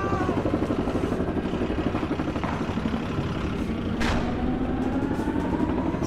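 Motorcycle engines running with a rapid, low pulsing, and one sharp click about four seconds in.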